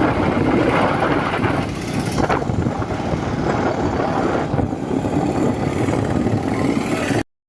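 Motorcycle under way on the road, heard from on the bike: a steady rush of engine, road and wind noise that cuts off abruptly near the end.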